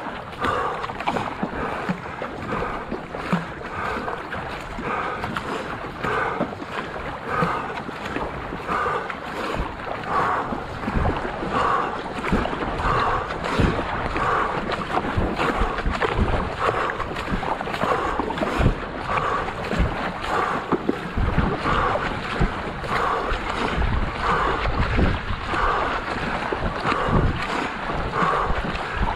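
Racing paddle strokes catching and pulling through the lake water in a steady rhythm, a splash about every 0.8 seconds, over the wash of the hull. Wind rumbles on the microphone, more strongly in the second half.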